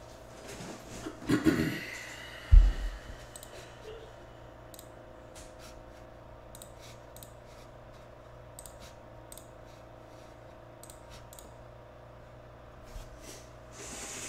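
Scattered light clicks over a steady faint hum, after a brief scrape and a single low thump in the first few seconds.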